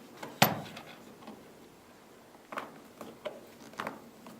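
A sharp click about half a second in as an iMac memory module snaps into its slot, the sign that it is seated correctly, followed by three fainter clicks and taps of handling.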